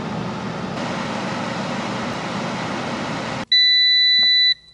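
PowerXL air fryer's fan running with a steady whoosh of hot air, which stops abruptly after about three and a half seconds. Then a single loud, steady electronic beep of about a second: the timer signalling that the cooking cycle is done.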